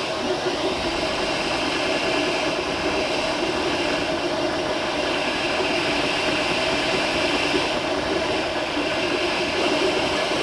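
MakerBot Replicator 2 3D printer running near the end of a PLA print, its cooling fan and stepper motors giving a steady mechanical hum with a few steady tones.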